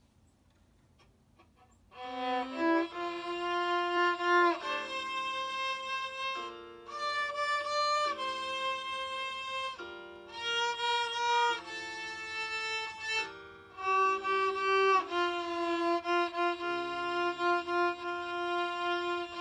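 Violin playing a slow melody of held notes in phrases with brief breaths between them, starting about two seconds in after a short near-silence.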